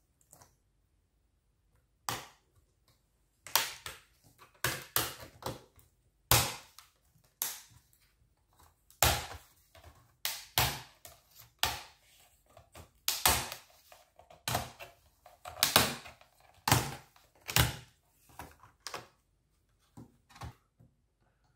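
Laptop keyboard being pushed and pried up out of an HP ProBook 450 G5 top case: a run of sharp plastic clicks and snaps, one or two a second, as its retaining clips let go.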